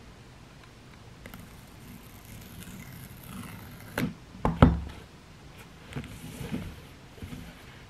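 Hands handling a cardboard iPhone box on a wooden tabletop: faint rustling and scratching as the tear-off seal strip is peeled away. A few sharp clicks come about four seconds in, then a knock against the table just after, the loudest sound, and a few lighter taps near the end.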